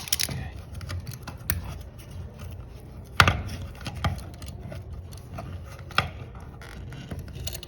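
Scattered clicks and knocks of hands handling an electrical outlet and its wires, with a few sharper taps about three seconds in and again about six seconds in.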